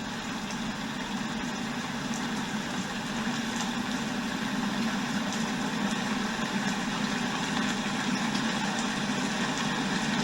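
Recorded rain ambience played through the small speaker of a Verilux VA04 light-therapy alarm clock: a steady hiss of falling rain that grows gradually louder.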